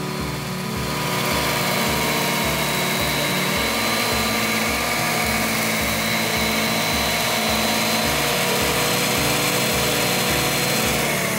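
Handheld electric circular saw running steadily as it cuts a single shallow anti-slip groove along the edge of a pinewood stair tread, its motor pitch falling as it winds down near the end.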